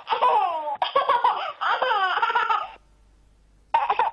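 A young girl's high-pitched voice laughing and making playful sounds in repeated falling swoops. It breaks off for about a second near the end, then starts again.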